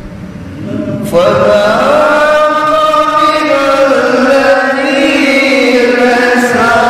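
Men's voices reciting the Qur'an together in the melodic tilawah style, starting about a second in with long held notes that glide slowly up and down.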